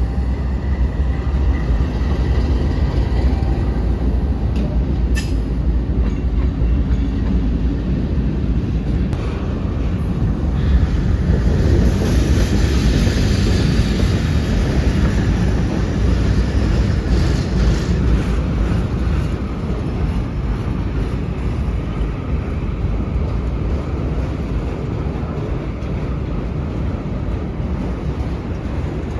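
A train rolling past on the rails, a steady rumble of wheels and cars on the track that grows a little louder around the middle.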